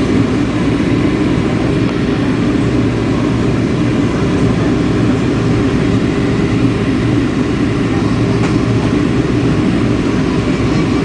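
Steady low rumble of an airliner's engines and rushing air, as heard inside the cabin on the approach to landing.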